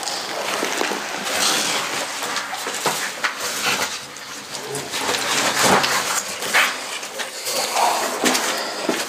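Footsteps scuffing down a stairway, mixed with rustling and knocks from a handheld camera being carried.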